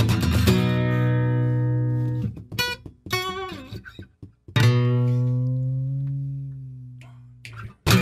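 Acoustic guitar played live: a strummed chord left to ring and fade, a few picked notes, then a new chord struck about four and a half seconds in that rings out slowly, with strumming starting again at the very end.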